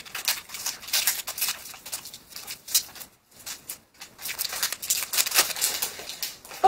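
Packing tape and its wrapping crinkling and crackling as they are picked at and torn off a small parcel by hand, in quick irregular scratches with a short pause a little before the middle.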